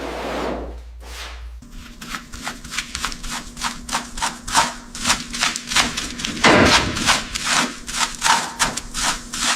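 Repeated rubbing or scraping strokes, about three a second, over a faint steady hum, with one longer stroke past the middle.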